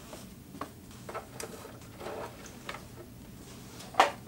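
Stiff Cordura fabric being handled and positioned at a sewing machine: soft rustling with scattered small clicks and taps, and one sharper click about 4 seconds in. The machine is not sewing.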